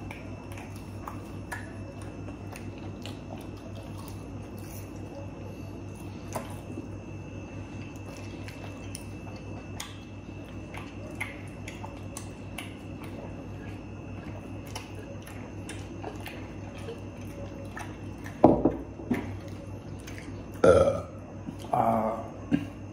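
Quiet chewing and small mouth and food clicks over a steady background hum. Near the end come three loud, short vocal sounds a second or two apart.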